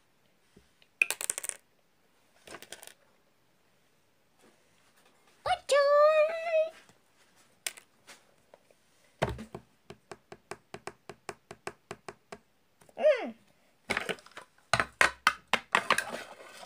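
Plastic toy building bricks clicked, knocked and handled on a stone tabletop, with a quick even run of clicks, about seven a second, lasting about three seconds. Short wordless vocal sound effects in a high voice come in twice: a held, wavering note and a brief falling one.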